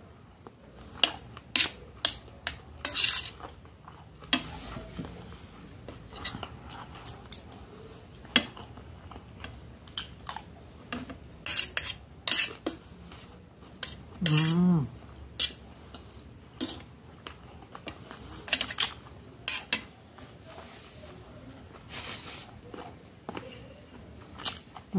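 Metal spoon and fork clinking and scraping on a large stainless steel plate in irregular clicks while someone eats. A brief low voiced murmur sounds about halfway through.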